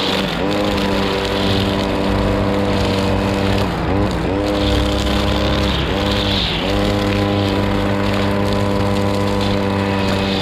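Brush cutter running at high revs, its nylon line cutting grass along a steel crash barrier. The revs dip briefly and pick up again a few times around the middle.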